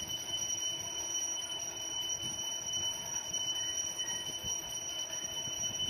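Faint handling rustle of an Apple AirTag being pressed into a leather keyring holder, under a steady high-pitched whine.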